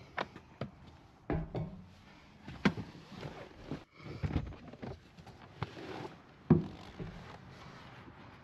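A person climbing into the driver's seat of a pickup and stepping back out onto a black tubular side step: scattered knocks, clicks and rustling of clothing, seat and shoes on the step, loudest about a third of the way in and again near the three-quarter mark.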